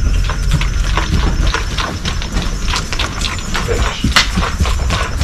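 Saddled colt's hooves striking the ground in an irregular run of knocks and clicks as it moves around, over a steady low rumble.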